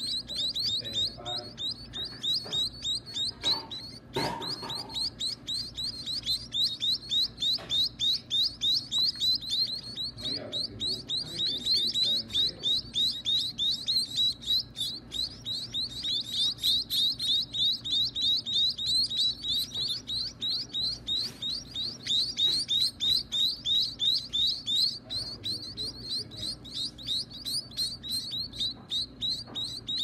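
Nestling birds begging in the nest while a parent feeds them: a steady, rapid series of short, high, downward-sliding chirps, several a second. There is one knock about four seconds in.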